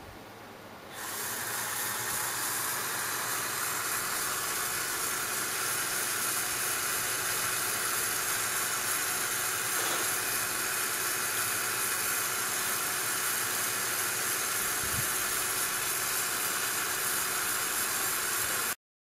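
A steady hiss starts about a second in and cuts off suddenly near the end.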